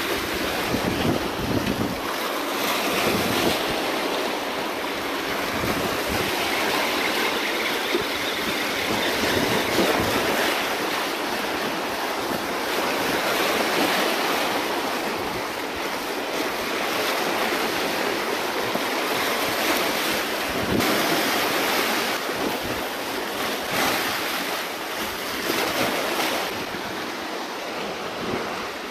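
Small waves washing and splashing against the rocks of a breakwater, with wind buffeting the microphone.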